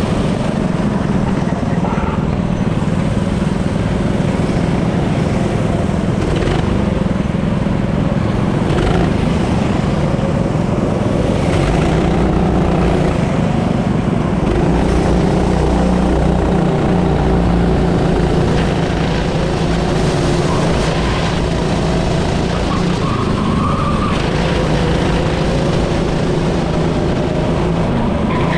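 Racing engine running hard through a lap, its pitch rising and falling as it accelerates and eases off.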